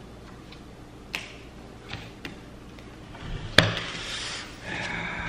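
Playing cards being dealt and slapped down onto a table mat: a few sharp snaps, the loudest about three and a half seconds in with a short rustle around it. A held tone comes in near the end.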